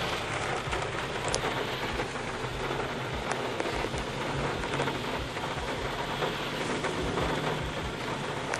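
Steady heavy rain coming down, an even hiss scattered with the small ticks of individual drops striking a surface.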